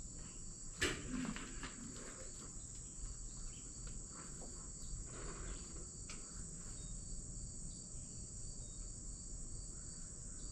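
Insects chirring steadily at a high pitch, with a single sharp click about a second in.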